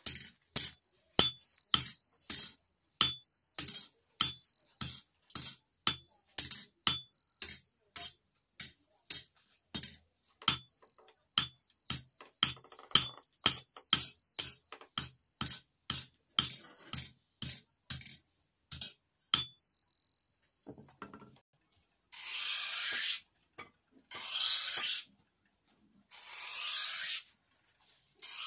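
A hand hammer striking a steel blade held in tongs on an anvil, about two blows a second, with the anvil ringing in a high, steady tone between blows. The hammering stops about twenty seconds in, and after a short pause a blade is drawn across a turning grinding wheel in four hissing strokes of about a second and a half each.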